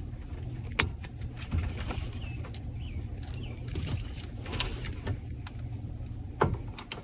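Sharp plastic clicks as steering-column parts are snapped back into place on a pickup truck: three clicks a couple of seconds apart over a steady low hum, with a few faint chirps in the background.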